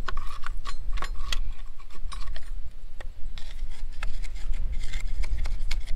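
Irregular metallic clicking and scraping as a wire is poked around inside the rust-clogged coolant passages of a tractor engine block to break the rust loose, over a low rumble.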